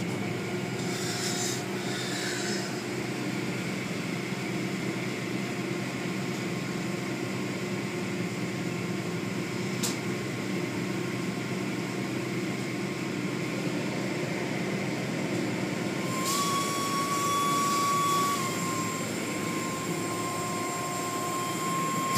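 Automatic tunnel car wash running: a steady drone of its machinery with the hiss of water and foam spraying on the rotating cloth curtains. A thin, steady high whine comes in about three-quarters of the way through and holds.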